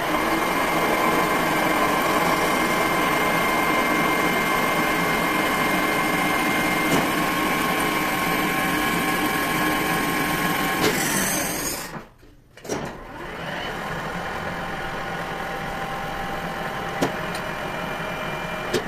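Metal lathe running with a steady whine. About eleven seconds in its pitch drops as it slows and stops, then it starts again and runs more quietly.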